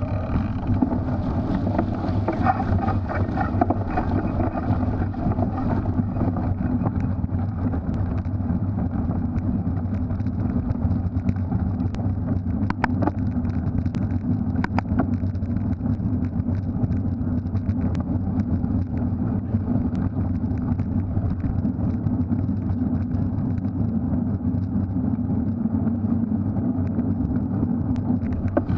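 Steady rumble of a Specialized Crux Elite X1 cyclocross bike ridden over a muddy course, with wind on the microphone and scattered sharp clicks and rattles from the bike.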